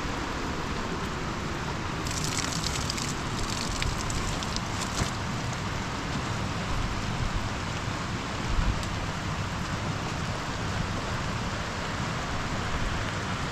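Steady rain falling over a low rumble, with a spell of sharper crackling about two to five seconds in.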